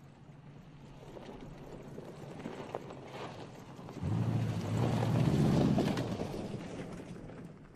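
Toyota Tundra TRD Pro pickup's 5.7-litre V8 and tyres on a loose gravel track as the truck drives past. The sound builds, jumps up sharply about four seconds in as the truck goes by, then fades.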